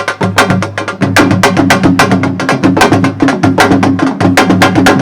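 Music with fast, dense drumming over a steady low bass line.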